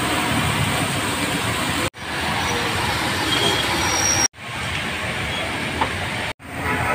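Steady street noise with passing traffic: an even rumble and hiss. It drops out abruptly three times where short shots are cut together.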